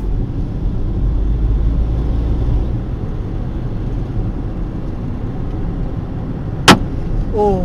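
Steady road and engine rumble inside a moving Kia Seltos's cabin, then near the end one sharp crack as a flying stone strikes the windshield and breaks it.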